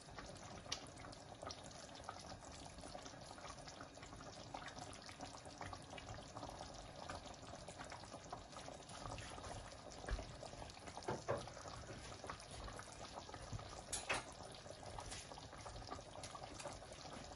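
Chicken korma simmering in an open pot on a gas hob: a soft, steady bubbling and sizzling, with a few light clicks.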